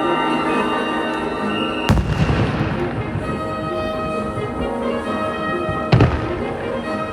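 Fireworks shells bursting over orchestral show music: two sharp, loud bangs, about two seconds in and about six seconds in, the first trailing off in a crackling spray.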